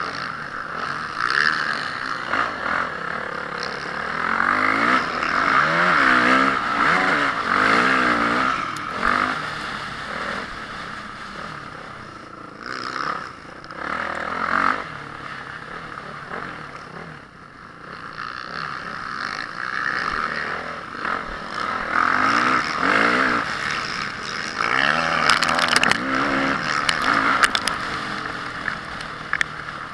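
Motocross engine of a Honda CRF450R, a four-stroke single, revving hard and dropping off again and again as the bike accelerates and shuts off through the track's sections. It runs over a steady rushing noise, with a quieter lull about halfway through and a few sharp clacks near the end.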